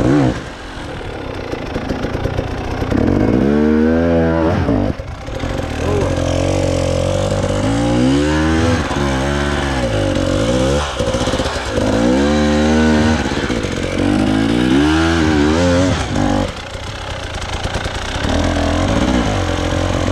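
Off-road motorcycle engine revved hard in repeated surges, its pitch climbing and falling about five times over a steady running note, as the bike struggles to get over a rocky climb.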